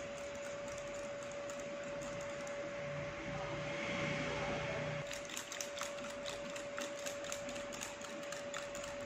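Wire whisk beating a creamy mixture in a glass bowl, the wires scraping and clicking against the glass in quick irregular ticks that grow sharper about halfway through, over a steady hum.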